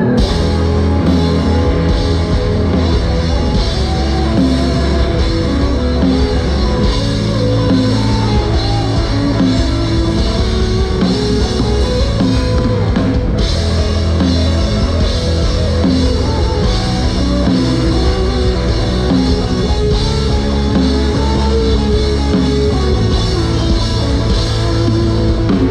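Loud rock music with a drum kit, bass and electric guitar playing steadily.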